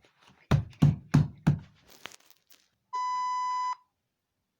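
Four quick, loud knocks in a row, followed about a second later by a steady single-pitched electronic beep lasting just under a second.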